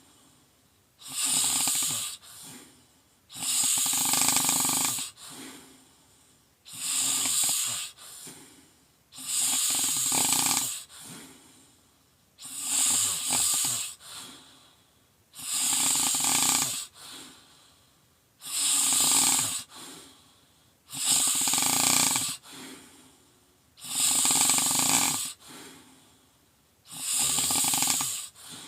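A person snoring loudly and rhythmically: a loud snore on each breath in, about every three seconds, each followed by a softer breath out.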